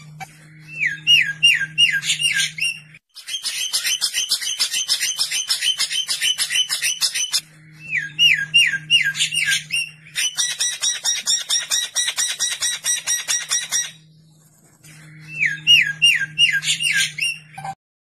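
Recorded songbird song on a bird-training (masteran) track. A phrase of about five quick swooping whistled notes comes three times, each with a low hum under it. Between the phrases are long stretches of rapid, harsh chattering. The sections start and stop abruptly, edited together.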